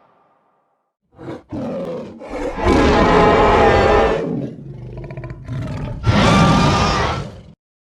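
Made-up monster roars for the fictional kaiju Lavazilla: a short roar about a second in, a long loud roar around three seconds in, a quieter growling stretch, then a second loud roar near the end that cuts off suddenly.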